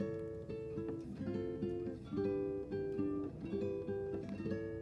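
Background music: an acoustic guitar picking a repeating pattern of plucked notes.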